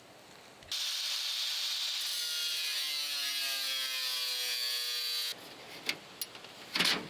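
Corded angle grinder with a cutoff wheel cutting into thin aluminum sheet. It starts abruptly about a second in and runs for about four and a half seconds, its pitch falling slowly as the wheel bites, then cuts off suddenly. A few clanks of tools being handled follow.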